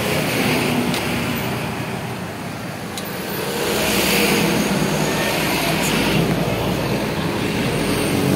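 Honda Supra X 125's single-cylinder four-stroke engine running steadily at idle, a little louder from about three and a half seconds in, with a few light clicks.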